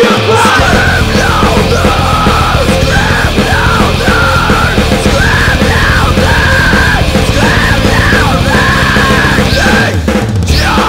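Post-hardcore band track at full volume: a dense, heavy mix of band instruments with yelled vocals over a repeating melodic line.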